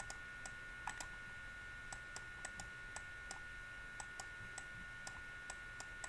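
Faint, irregular clicks of a computer pointing device, about two or three a second, as an equation is handwritten stroke by stroke on screen, over a steady faint electrical whine.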